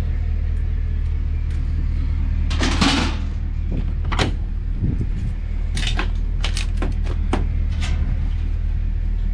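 Steady low rumble of a vehicle on the road, heard from inside the cab, with a scattering of short sharp clicks and knocks.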